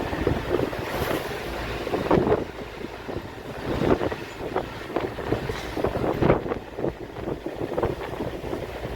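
Wind buffeting the microphone: an uneven, rumbling noise that surges and eases irregularly.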